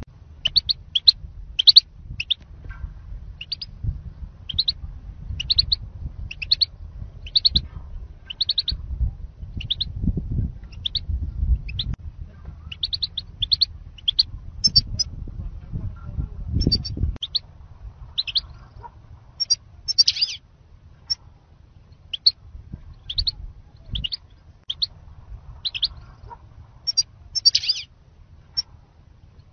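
European goldfinch calls: short, high chirps repeated about once or twice a second, over a low rumble that eases off after about seventeen seconds.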